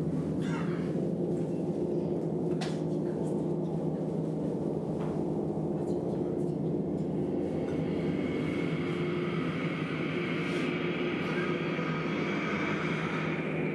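Large gong held in a continuous drone by steady mallet playing: a low hum holds even while a higher metallic shimmer swells up about halfway through and stays.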